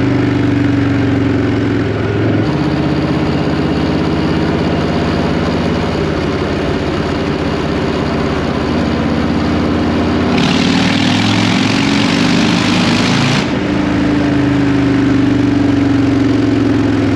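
Harley-Davidson Fatboy 114 V-twin running loud through Vance & Hines Big Radius straight pipes, its pitch shifting and gliding as the engine speed changes. A burst of hiss rises over it for about three seconds partway through.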